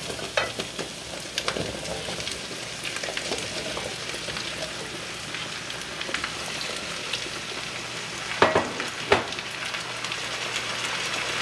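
Butter, onion and garlic sizzling steadily in a frying pan as diced raw potatoes are scraped in from a bowl with a plastic spatula, with scattered scrapes and taps of the spatula against pan and bowl. Two sharper knocks come about three-quarters of the way through.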